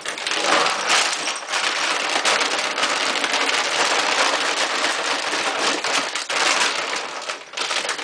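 Pet food crunching and rattling: a dense, continuous run of small clicks, with a short lull near the end.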